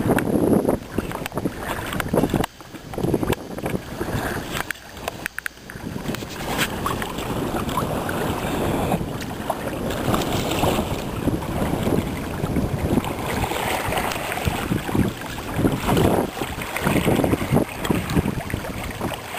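Wind buffeting the microphone over water rushing and splashing along the hull of a kayak under sail as its bow cuts through choppy waves. The noise comes in gusts with brief lulls at first, then runs steadier.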